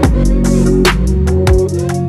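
Background music: an electronic track with deep held bass notes and sharp drum hits.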